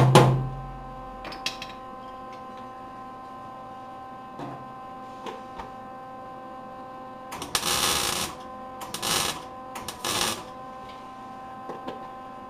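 A MIG (wire-feed) welder laying three short stitch welds on a thin sheet-steel patch panel, each a burst of about a second or less, a little past the middle, over a steady electrical hum. The welds are spaced out so as not to blow through the thin steel. A hammer's rapid tapping on the panel stops right at the start.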